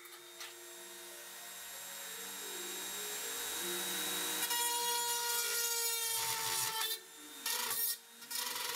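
Handheld rotary tool with a fine bit grinding into weathered copper sheet: a high whine that swells in over the first few seconds, its pitch sagging slightly under load. It stops about seven seconds in, followed by two short bursts.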